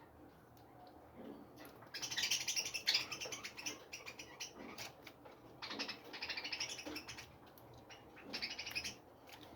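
Small songbirds twittering in three bursts of fast, high chirps, with short lulls between them.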